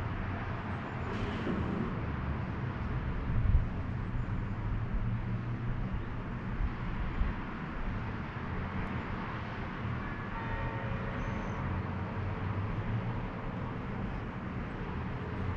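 Steady distant town traffic hum with a low rumble underneath, and two brief low bumps about a third and halfway through.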